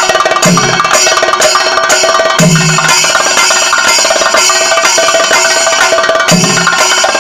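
Kerala chenda drums in a thayampaka: fast, dense stick rolls on the lead drums, three deep booming strokes from the bass chendas, and ilathalam hand cymbals ringing steadily underneath.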